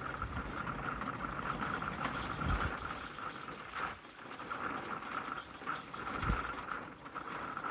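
Steady rain falling on an RV during a storm, with two low thumps, about two and a half and six seconds in.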